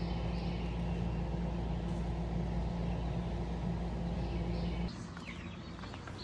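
A steady low hum for about five seconds, which drops away suddenly to a quieter outdoor background with a faint bird chirp.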